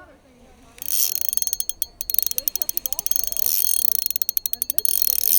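Shimano Vanquish spinning reel making rapid ratchet-like clicking over a high hiss, close to the microphone, starting about a second in.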